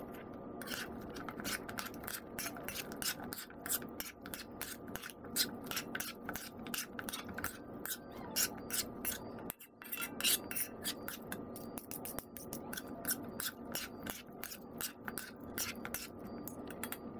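Metal utensils scraping and clicking against a nonstick frying pan in quick, irregular strokes as fried chicken pieces are tossed through sauce, with a brief break a little past halfway.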